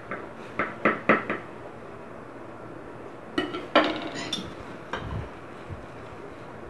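A metal knife knocking and clinking against a plate while sliced food is moved about on it. There are a few sharp knocks in the first second and a half, then a short run of ringing clinks about three and a half seconds in.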